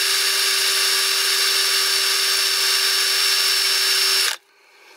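Electric drill running at a steady speed, its bit working against an HTS-2000 aluminum brazing repair on a pop can that is really tough to get through. It stops suddenly about four seconds in.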